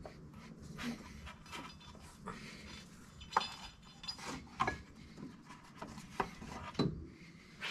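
Light rubbing with scattered small clicks and clinks, as the CVT drive belt is worked off a Polaris RZR Pro XP's secondary clutch; a few sharper knocks stand out near the middle and toward the end.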